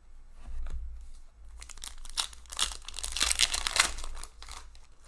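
Foil hockey card pack torn open by hand, its wrapper crinkling and crackling. A run of dense crackling starts about a second and a half in and lasts about three seconds.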